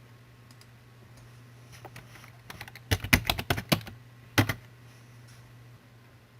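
A quick burst of computer keyboard keystrokes about halfway through, then one more keystroke about a second later, over a low steady electrical hum.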